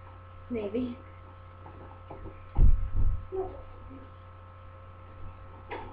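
Steady electrical mains hum with short snatches of voice. There are two heavy low thumps about halfway through.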